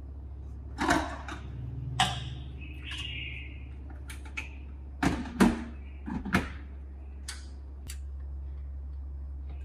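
Hard plastic clacks and knocks as baby-bottle parts are handled in a plastic bottle sterilizer and set down on a stone countertop, the loudest pair about five seconds in, over a steady low hum.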